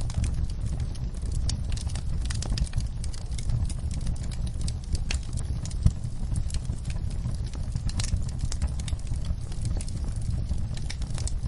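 Wood fire of burning logs crackling: scattered irregular pops and snaps over a low, steady rumble of the flames, with one sharper pop a little over halfway.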